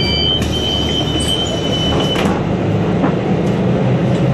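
Cabin noise of a Suzhou Higer KLQ6930G city bus: steady engine and running rumble, with a steady high-pitched beep that cuts off about two seconds in and a few sharp clicks. Near the end the engine note grows stronger and rises slightly.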